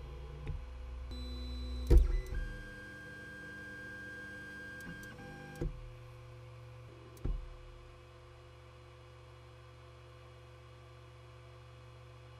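Ender 3 3D printer running: its stepper motors whine in several steady pitched tones for about three seconds, with a loud clunk just before and two more clunks after. After the last clunk only a steady low hum of the printer's cooling fans is left.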